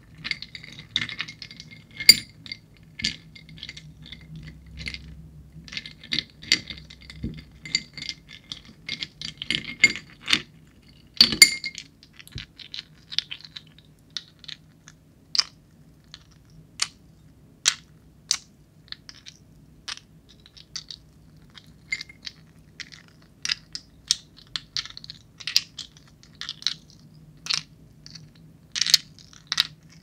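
Ice cubes clicking and clinking as they are scraped against a ceramic saucer and knocked together in the hands: irregular sharp clicks throughout, with a loud knock about eleven seconds in.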